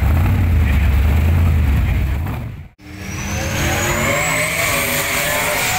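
Hot rod engine running with a steady, deep low rumble, cut off abruptly a little over two seconds in. Then a different engine revs, with a high-pitched whine climbing steadily over the next couple of seconds.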